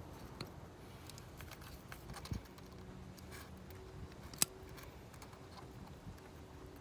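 Small, scattered plastic and metal clicks and taps from handling a cracked ignition coil pack connector while pulling its pins with a depinning tool, with one sharp click about four and a half seconds in.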